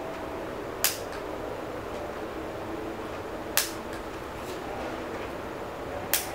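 Nail clipper snapping shut on fingernails: three sharp clicks, a couple of seconds apart.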